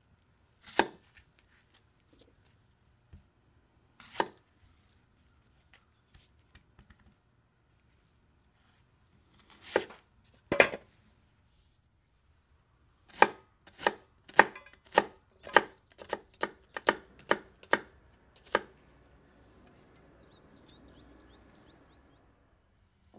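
Large chef's knife cutting a white onion on a wooden cutting board: a few single cuts, then a run of about a dozen quick chops, roughly two a second. After the chopping, a faint soft rustle for a few seconds.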